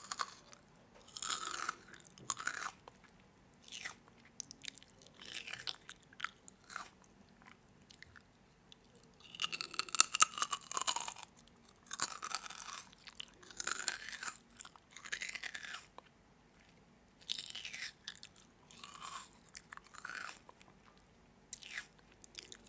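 A person biting into and chewing crunchy food in a run of separate crunches, the loudest about ten seconds in.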